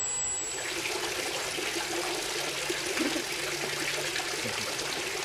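Swimming pool water splashing and trickling steadily, beginning about half a second in.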